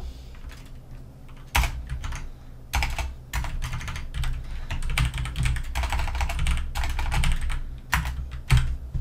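Typing on a computer keyboard: several quick runs of keystrokes separated by short pauses, as code is entered.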